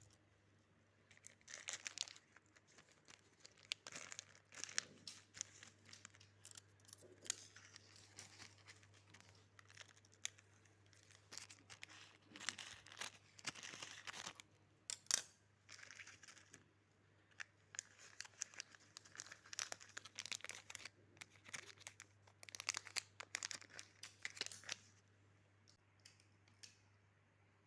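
Battery packaging being torn open and crinkled by hand: irregular rustling and tearing, with one sharp snap about fifteen seconds in.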